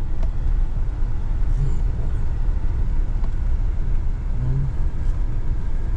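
Steady low rumble of a vehicle's engine and tyres while driving.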